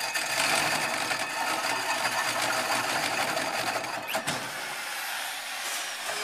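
Electric drill driving a hole saw through a metal panel: a steady grinding whir of the teeth biting the metal. There are a couple of sharp knocks about four seconds in, and the sound eases a little near the end.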